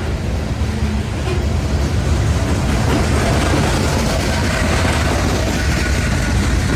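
Loaded unit coal train rolling past: a loud, steady heavy rumble of the train on the rails, with a faint high squeal in the second half.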